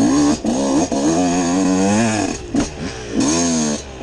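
125 cc enduro dirt bike engine, heard close up from the bike being ridden, revving up and down with the throttle. It drops off briefly about half a second in and again for about a second past the middle, then revs up again.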